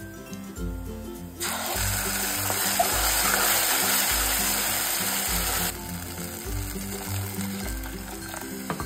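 Green masala paste sizzling in hot oil tempering in a kadhai, over background music. The sizzle starts suddenly about a second and a half in and stops abruptly about four seconds later.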